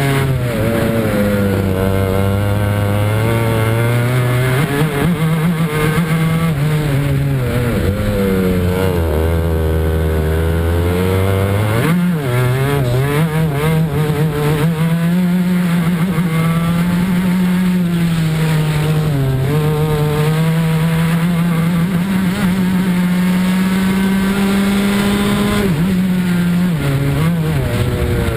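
Racing kart engine heard onboard, its revs rising and falling through the corners. The pitch drops low for a few seconds about a third of the way in, climbs sharply again, holds high and steady for a long stretch, then dips briefly near the end.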